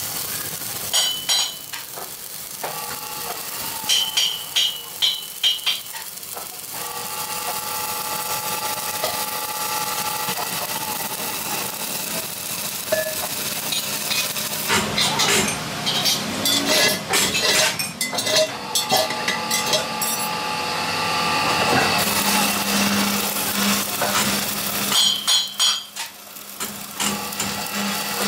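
Stick welding arc crackling and hissing steadily against a steel truck wheel rim. Several bursts of sharp ringing metal clanks come through it, about a second in, around four to six seconds, in the middle and near the end.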